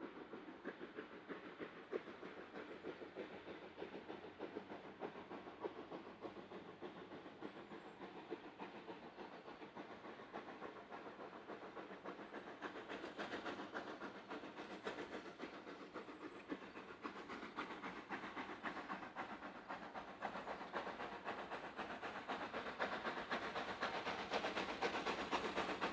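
Steam locomotive working a passenger train, its exhaust chuffing and hissing, growing louder as it approaches and loudest near the end.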